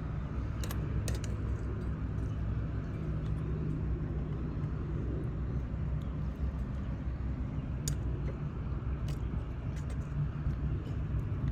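A steady low outdoor rumble, with a few faint sharp clicks about a second in and again near the end.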